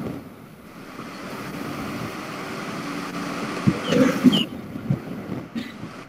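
Steady background noise with a low rumble, picked up by an open microphone. A few short, high, falling chirps and soft knocks come near the middle.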